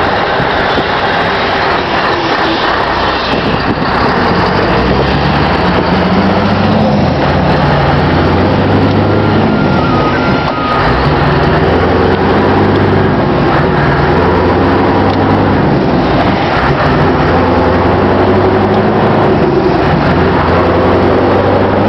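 Scania R620's V8 diesel engine running as the truck drives on the road, its note rising and falling again and again, with a short dip in loudness about ten seconds in.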